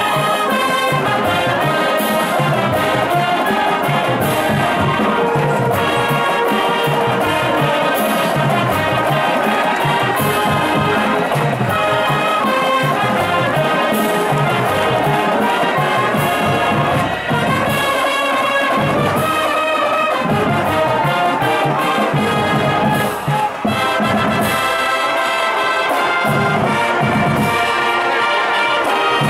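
High school marching band playing an up-tempo tune, with brass carrying the melody over drum hits on a steady beat.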